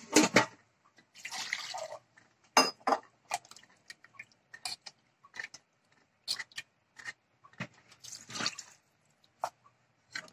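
Thick tomato gravy in a kadai being worked with a steel ladle: scattered wet plops and clicks, with two short spells of scraping or sloshing, one about a second in and one near the end.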